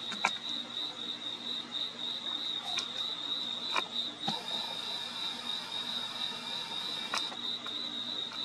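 Crickets chirping in a steady, rapidly pulsing high trill, with a few sharp clicks scattered through.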